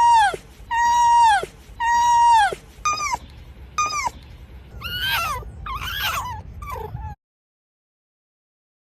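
Fox calling: three long, high whining calls, each held level and then dropping away at the end, followed by two shorter calls and a pair of wavering, warbling calls. The calls stop about seven seconds in.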